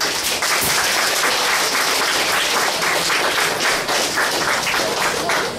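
Audience applauding: dense clapping that starts suddenly and dies down at the end.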